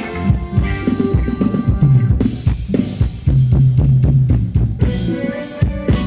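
Thai ramwong dance music played by a band: a drum kit keeping a steady beat under sustained bass notes.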